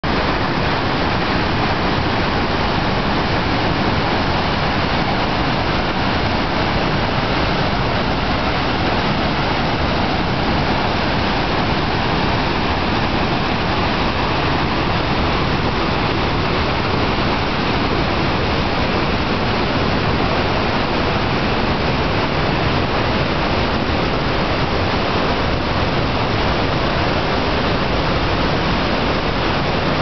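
Waterfall gushing in high flow into a swollen, churning stream: a loud, steady rush of water.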